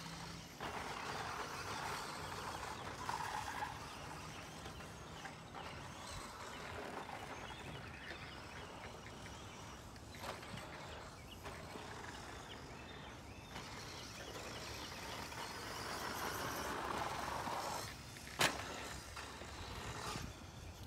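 Radio-controlled stadium truck running laps on a dirt track, its motor and tyres coming and going as it passes, loudest twice. A single sharp click near the end.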